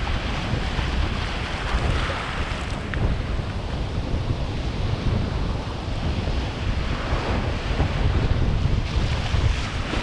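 Wind buffeting the microphone in gusts over the steady wash and hiss of choppy, breaking ocean waves.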